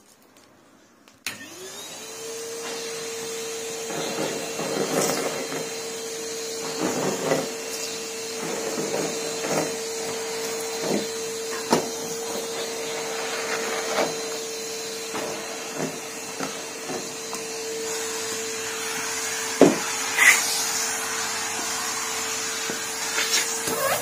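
A Numatic Henry vacuum cleaner is switched on about a second in, its motor spinning up to a steady whine with rushing air. Irregular clicks and rattles follow as tissue scraps are sucked up off the carpet, with a couple of louder clatters past the middle.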